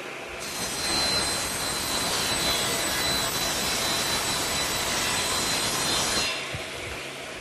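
Table saw ripping a wooden board lengthwise: the blade bites into the wood about half a second in and cuts for about six seconds with a steady high whine, then the saw runs on freely.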